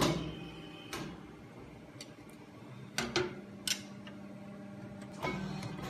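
Vertical plastic injection moulding machine running with a steady low hum, overlaid by sharp metallic clicks and knocks, roughly one a second, with a quick cluster of them about three seconds in.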